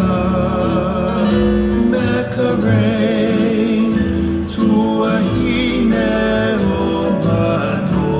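Hawaiian song: a voice singing long, wavering notes over plucked acoustic guitar.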